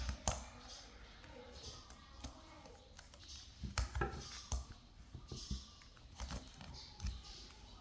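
Scattered light knocks, clicks and rustles as a baby monkey paws at a wicker basket and a plate of dry tamarind pods. The loudest clatters come about four seconds in and again near seven seconds.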